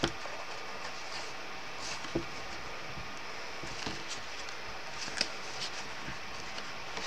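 Hands folding 240 gsm card panels up along their creases: faint rustling and crinkling of card, with a few short taps, the clearest about two and five seconds in, over a steady low hiss.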